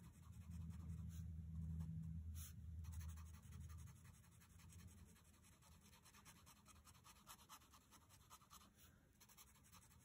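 Faint strokes of a fine-tip black Sharpie marker drawing short up-and-down lines on sketchbook paper, near silent overall. A low hum sits under the first four seconds.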